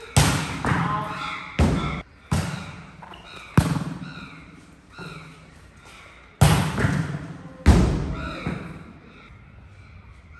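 Volleyball being spiked and passed: about six sharp smacks, each with an echo trailing off.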